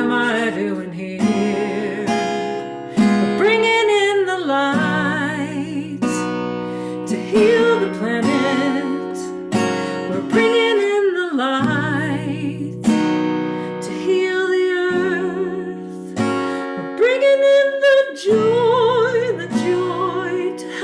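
Acoustic guitar strummed in a steady rhythm while a woman sings over it in long held notes with vibrato.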